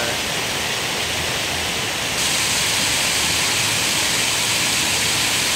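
Running water in a pond: a steady, even noise that gets louder and brighter about two seconds in.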